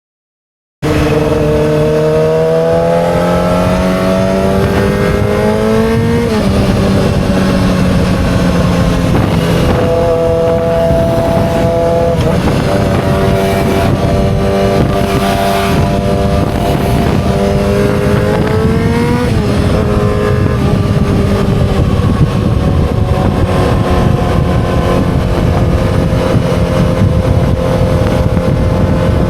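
2007 Yamaha R6's inline-four engine under way. Its pitch climbs, then drops sharply at each gear change, three times, with spells of steady running in between, and it eases down gently near the end.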